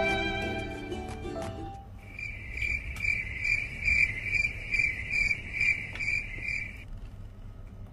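A violin music cue fading out, then a cricket-chirping sound effect: a regular series of high chirps, a little over two a second, that stops near the end.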